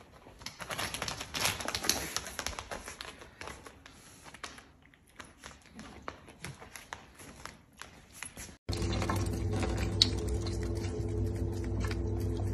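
Rapid, irregular clicking and tapping of a small animal's feet on a tiled floor. About two-thirds of the way through, the clicking stops and a steady hum takes over, with one sharp tick.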